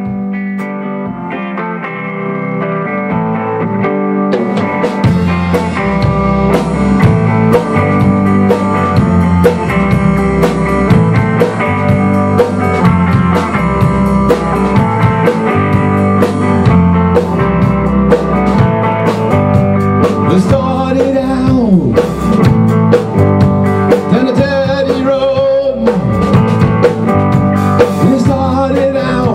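Rock band playing live: two electric guitars with a drum kit that comes in fully about four to five seconds in, the whole getting louder as it builds. Guitar string bends stand out in the second half.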